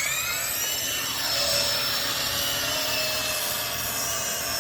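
RC helicopter's small electric motors and rotor blades spinning up, rising in pitch over the first second, then holding a steady high whine whose pitch wobbles slightly as the throttle shifts.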